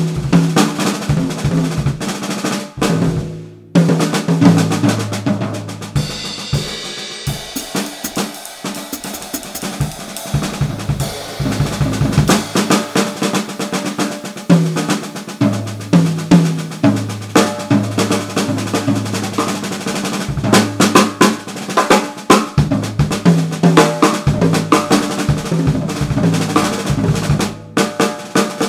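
Drum kit played solo: fast snare and bass drum patterns with rolls, with a brief break about three seconds in.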